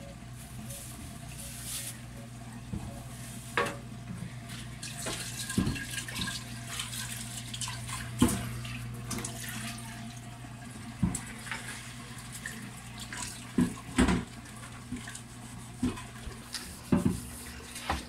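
Whirlpool Intellicarga top-load washing machine draining before its spin: the drain pump hums steadily as water runs out, with scattered knocks and clicks.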